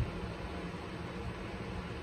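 Steady low hum and hiss of a vehicle cabin, with one brief click at the very start.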